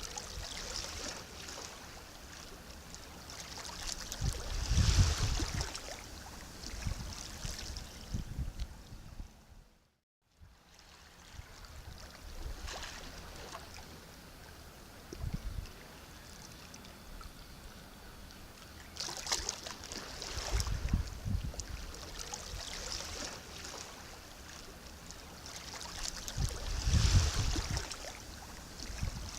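Sea waves washing in and lapping, swelling at intervals of several seconds with a low rumble under each surge. About ten seconds in the sound fades out to a brief silence and comes back.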